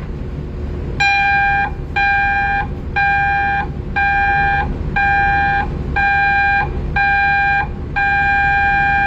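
Ship's general emergency alarm signal: seven short, steady, high beeps about one a second, then a long tone beginning near the end.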